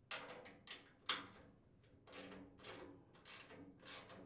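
Socket ratchet clicking in short runs, about two strokes a second, as nuts are backed off the bolts holding the inlet guide to the chipper shredder's hopper. One sharper clack comes about a second in.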